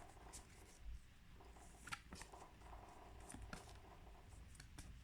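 Near silence with faint scattered clicks and rustles of paper flashcards being handled and flipped one by one.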